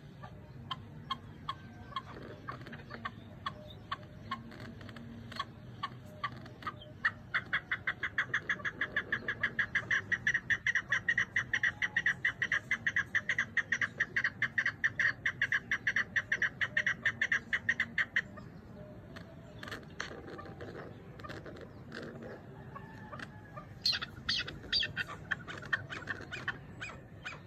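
Chukar partridge calling: scattered short chuck notes, then about seven seconds in a long, fast, even run of chuck notes, about five a second, lasting some eleven seconds. A few more quick bursts of notes follow near the end.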